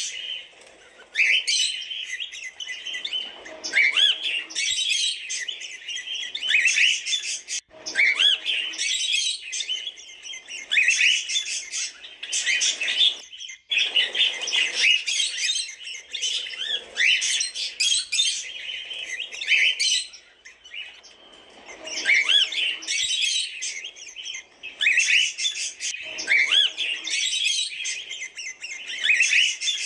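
Cockatiels chirping and calling in a near-continuous stream of short, often rising chirps, broken by a few brief lulls.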